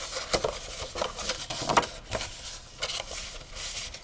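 Sheet of thin patterned designer paper rustling as hands fold it along its scored lines, a string of short, irregular scratchy rustles.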